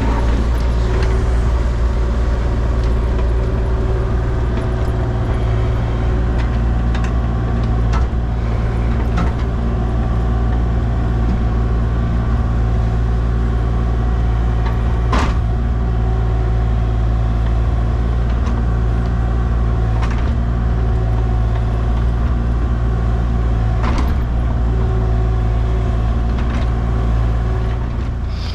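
Heavy excavation equipment's engine running steadily at an even speed, with a few sharp knocks, the loudest about fifteen seconds in.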